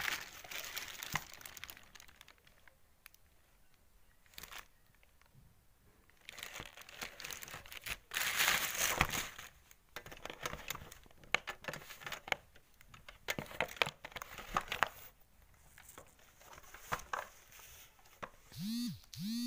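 Plastic wrapping crinkled and rustled by hand in bursts as a new receiver is unpacked from its cardboard box. Two short squeaks near the end.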